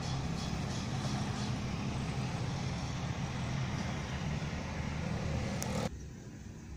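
Steady rumble of a train out of sight, with regular wheel clicks over rail joints, about three a second, in the first second or so. The sound cuts off suddenly about six seconds in, leaving a much quieter background.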